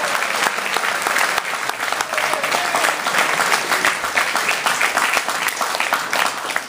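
A group of people applauding, dense steady hand clapping.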